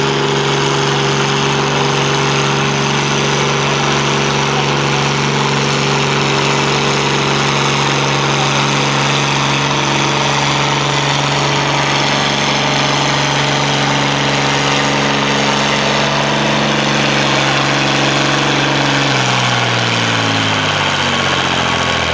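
Oliver tractor engine pulling a tractor-pull sled under load, held at one steady high speed. Over the last few seconds the note drops in pitch as the engine throttles down.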